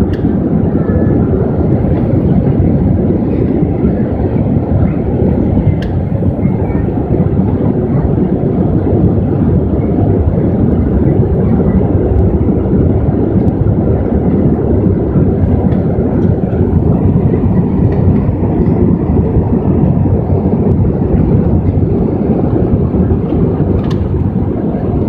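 Steady, loud rumble of an Airbus airliner's engines and airflow heard from inside the passenger cabin in flight.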